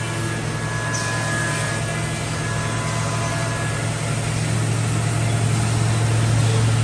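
CNC mortiser and tenoner machine running with a steady low hum under a wash of noise, with faint high steady whines during the first few seconds.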